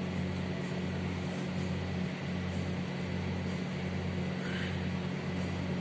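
A steady low machine hum from a running motor, wavering slightly a little faster than once a second.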